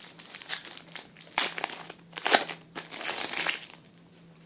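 Crinkling of a plastic trading-card pack wrapper as it is handled and opened, in several sharp bursts.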